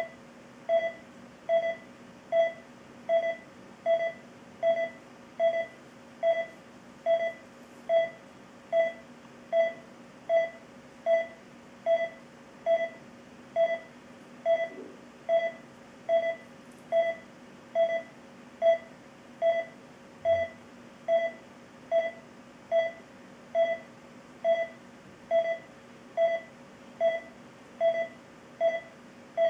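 Philips IntelliVue X2 patient monitor's pulse oximeter pulse tone: a short mid-pitched beep once per detected heartbeat, evenly at about 75 a minute, in step with the SpO2 pulse reading of 100% saturation.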